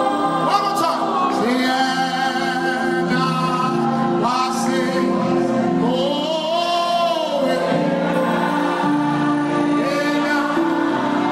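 Live gospel worship music: voices singing together over held chords from the band, with one long arching sung line near the middle.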